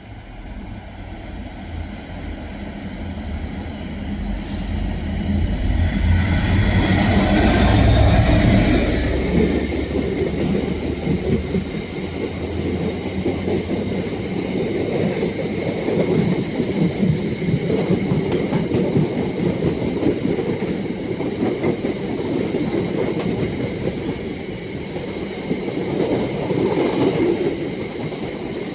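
Diesel train approaching and rolling past close by: its engine hum grows louder for the first eight seconds or so, then its wheels clatter rhythmically over the rail joints for the rest of the time.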